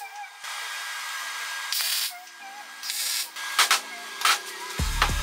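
MIG welder arc crackling and hissing in short bursts while welding steel. A few sharp knocks come about three and a half to four seconds in, and background music with a deep beat starts near the end.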